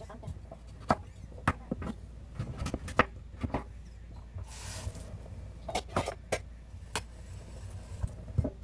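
Cleaver chopping sweet potato and potato on a wooden cutting board: irregular sharp knocks as the blade strikes the board, about a dozen in all.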